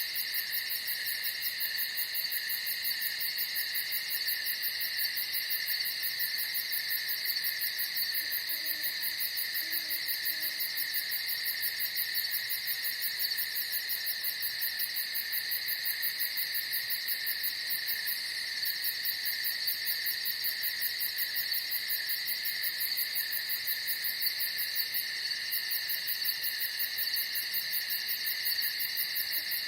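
Night insect chorus: a steady, shrill trilling of crickets with a fast, even pulsing buzz higher up, unbroken throughout.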